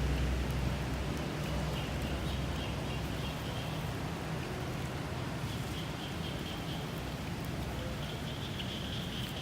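Steady outdoor ambience after rain, with a faint high chirping that comes and goes.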